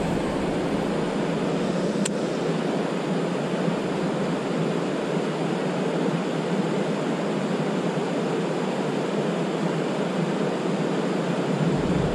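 Water pouring over a river weir: a steady, even rush.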